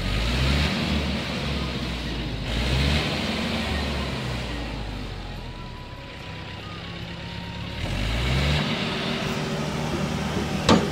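Tractor engine revving up three times to drive the trailer's hydraulic tipper under a full load of logs, with a sharp clank near the end.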